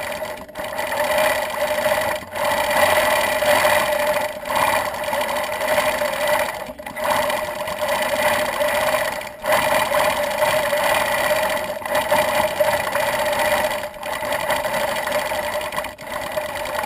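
Gammill longarm quilting machine running steadily, stitching as it is guided across the quilt.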